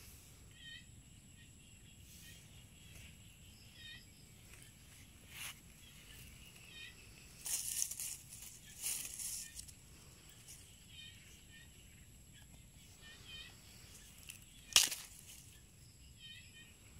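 Outdoor rustling with a faint chirp repeating every second or two over a steady thin high tone, a longer patch of rustling around the middle, and one sharp snap about fifteen seconds in.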